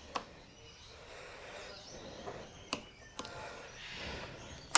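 A few faint, short clicks and knocks of hands working a heated grip onto a motorcycle's throttle tube, over a quiet background.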